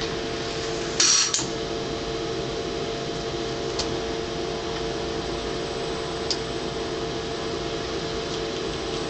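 Robotic packaging machinery running with a steady hum. About a second in there is a short sharp hiss, and later a couple of light clicks.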